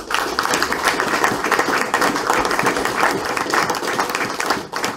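Audience applauding: many hands clapping in a dense, steady patter that fades away near the end.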